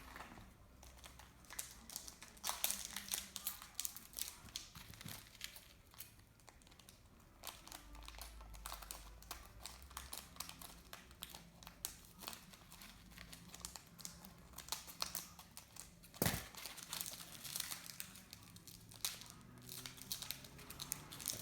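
Foil wrapper of a trading-card pack crinkling and tearing as it is worked open by hand; the pack is stubborn to open. One sharp snap about three-quarters of the way through.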